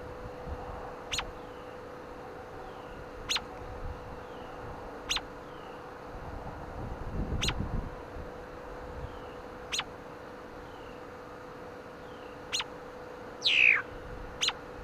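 Songbirds calling: a string of short, sharp chip notes about every two seconds, faint falling notes behind them, and one loud falling call near the end. Wind briefly rumbles on the microphone about halfway through.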